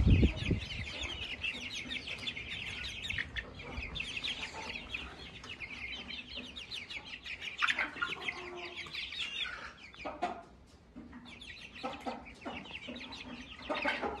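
A flock of young chickens clucking and peeping in short, rapid calls while they peck feed from an outstretched hand, with a low bump right at the start and a brief lull about ten seconds in.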